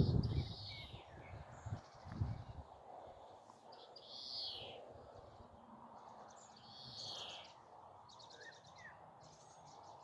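Wild birds calling in open countryside: several short, high, falling calls, the loudest about four and seven seconds in, then quick rattling trills near the end, over a faint steady outdoor hiss. A low rumble of wind or handling on the microphone dies away in the first two seconds.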